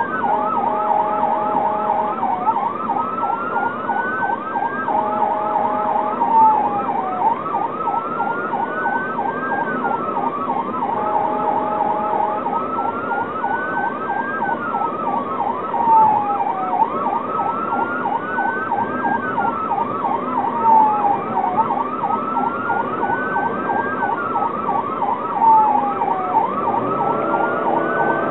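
Electronic emergency siren on a responding vehicle: a fast yelp running together with a slower wail that rises and falls about every five seconds. Three short steady two-note horn blasts sound in the first half, and engine noise comes up near the end.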